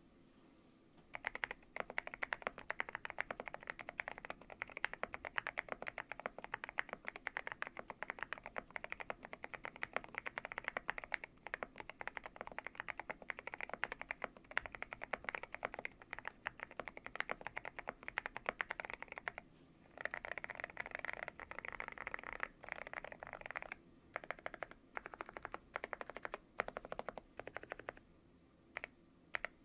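Typing on a GMK87 mechanical keyboard with lubed Akko Rosewood switches, Kirby MSA-profile keycaps and a tape-and-foam modded case: fast, steady keystroke clatter from about a second in, a denser flurry around twenty seconds, then slower scattered presses and a couple of single keystrokes near the end.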